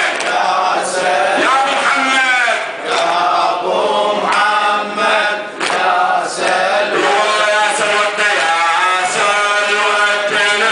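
A man's voice chanting a religious recitation in a melodic line through a microphone, with a group of men's voices chanting along.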